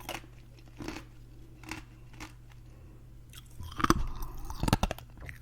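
Ice being chewed: separate crunches about once a second, then a louder, quicker run of crunches near the end.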